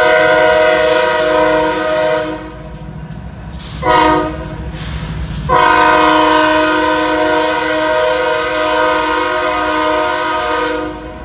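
Train air horn sounding a chord of several tones over the low rumble of the passing train. A long blast ends about two seconds in, followed by a short blast and then a final long blast. This is the closing long-short-long of the grade-crossing horn signal.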